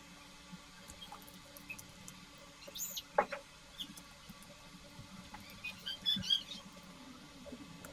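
Light scattered clicks and a few short, high squeaks from handling and wiping plastic keyboard parts.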